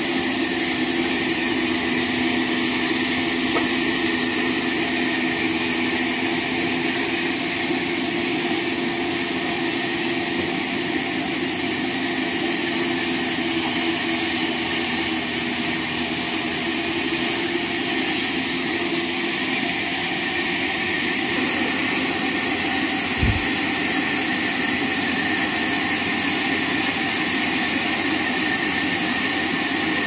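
Electric horizontal band sawmill running steadily, its band blade sawing lengthwise through a log on the rail carriage, a constant hum under a high hiss. One short knock about 23 seconds in.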